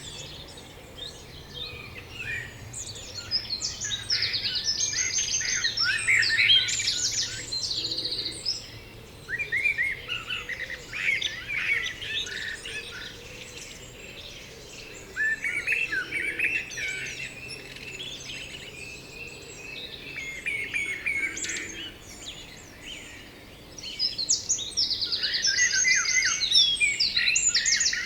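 Songbirds singing, with high chirps and fast trills in four phrases of a few seconds each, separated by short pauses.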